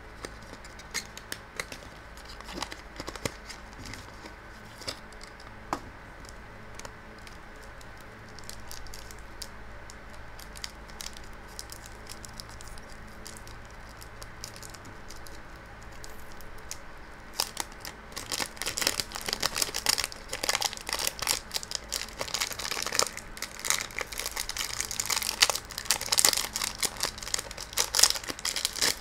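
Clear plastic wrapping on a small puzzle box crinkling and tearing as it is peeled off by hand. Scattered crackles at first, turning louder and busier past the middle.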